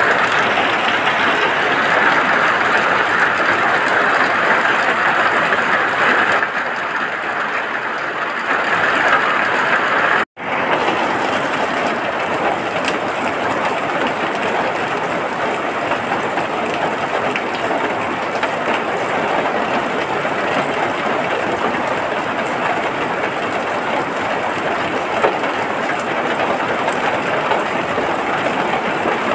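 Steady rain falling, an even, continuous hiss that cuts out for an instant about ten seconds in and then carries on.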